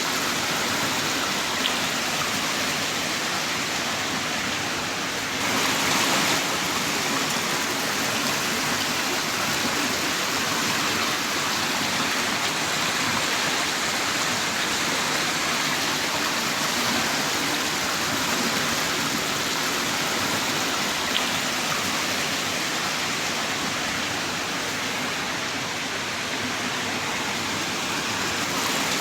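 Heavy rain pouring steadily in a dense, even hiss, swelling briefly louder about six seconds in, with a couple of faint single drip ticks.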